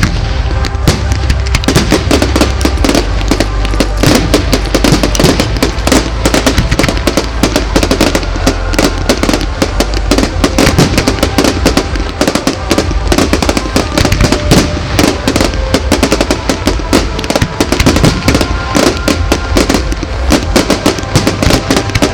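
Fireworks show: a dense, continuous run of bangs and crackling, many a second, over music.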